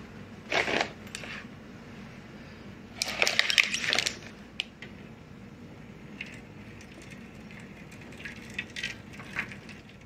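Metal springform pan knocking and clinking against a glass pie dish on a metal baking tray as it is set in place, loudest about three seconds in. Then water from a kettle pours faintly into the glass dish for a water bath.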